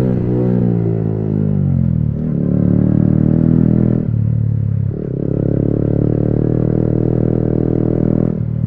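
Yamaha MT-15's 155 cc single-cylinder engine through an Akrapovic exhaust with the dB killer removed, free-flowing and loud, as the bike is ridden. The note falls over the first two seconds, then runs steady, with brief breaks about four and five seconds in and again near the end.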